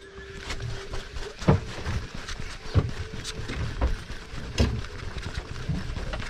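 A boat's engine humming steadily, with a handful of irregular knocks and the rush of water and wind.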